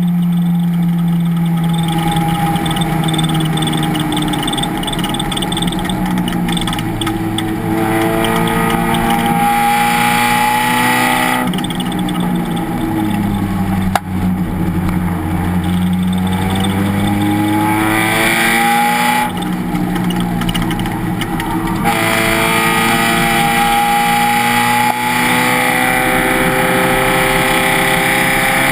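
Race car engine running hard, pulling up in pitch three times, with sharp drops and lower steady running between the pulls.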